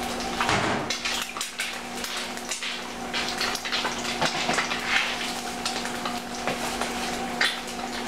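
A clear plastic food container and its lid being handled as leftover ham is packed into it: scattered clicks, knocks and plastic rustling, over a steady low hum.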